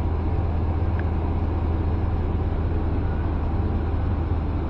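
Ram 1500's 5.7 V8 idling steadily with a low, even rumble, running with a misfire that the mechanic puts down to cylinder 7, whose fuel-injector circuit reads open.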